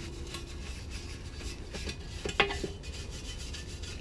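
A medium-stiffness brush scrubbing a rusty metal dirt-bike part with acid cleaner, in quick back-and-forth strokes. About two and a half seconds in, the part knocks once and rings briefly.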